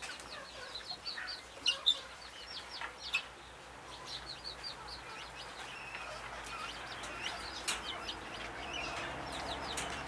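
Parrots in a mixed aviary chirping: a steady run of short high chirps, several a second, with a few louder, sharper calls now and then.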